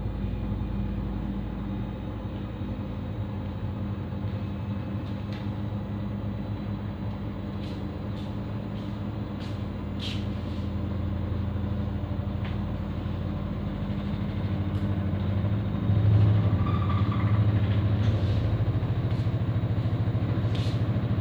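Samsung Digital Inverter washing machine in its spin cycle: a steady low hum and rumble from the spinning drum and motor, getting louder about two-thirds of the way in, with a few light clicks.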